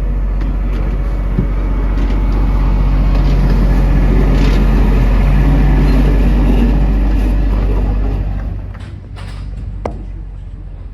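Theme-park Thomas the Tank Engine ride train running, heard from aboard: a loud, steady low rumble that falls away sharply about eight seconds in, with one sharp click near the end.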